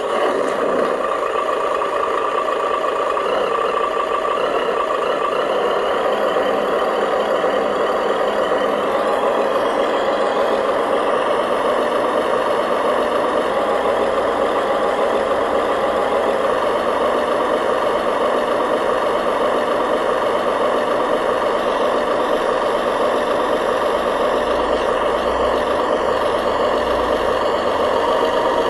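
Radio-controlled model truck running steadily, an even mechanical drone from its motor and drivetrain.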